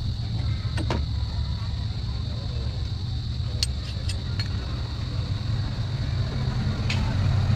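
A few light clicks and taps from hands working on cables under a vehicle's dashboard, three of them close together in the middle, over a steady low rumble and a steady high hiss.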